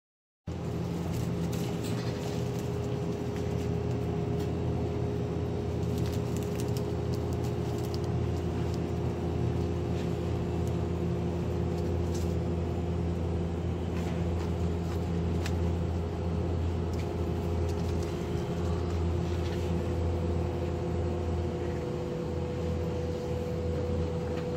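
Steady low hum of a convenience store's open refrigerated display cases and ventilation, with a few held tones in it. It starts abruptly about half a second in. Now and then there is a faint click as plastic food containers are picked up.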